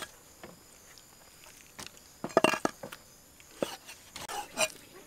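Meat cleaver chopping raw beef on a thick round wooden chopping board: a few scattered knocks, the loudest a quick cluster about halfway through.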